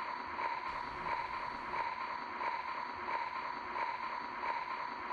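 Steady, hissing atmospheric drone of a film soundtrack, pulsing about twice a second.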